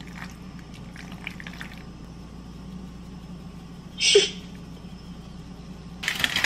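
Kitchen sounds: a steady low hum with faint scattered ticks, one short loud sound about four seconds in, then pots, dishes and utensils clattering near the end.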